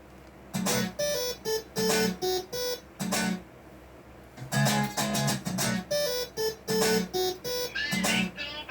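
Music: an acoustic guitar playing short, choppy strummed chords in a steady rhythm, with a pause of about a second roughly halfway through.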